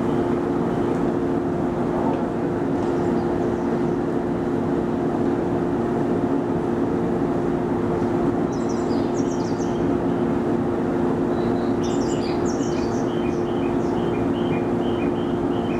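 A JR 115-series electric train standing at a platform, its onboard equipment humming steadily with a fixed tone. Birds chirp in short bursts about halfway through and again near the end.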